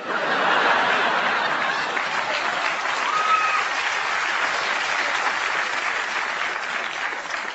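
Studio audience applauding after a punchline. The applause starts suddenly, holds steady, and thins out near the end.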